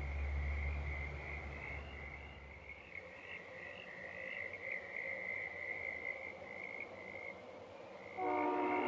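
A chorus of frogs calling steadily, a high wavering trill, over a low rumble that fades away in the first few seconds. Near the end, a Nathan P3 three-chime locomotive horn suddenly sounds its chord, loud over the frogs.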